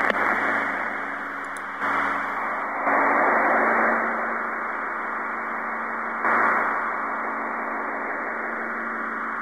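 Steady hiss and static of a recorded radio broadcast, thin and narrow like sound over a radio channel, with a faint steady hum underneath. The noise swells louder about two, three and six seconds in.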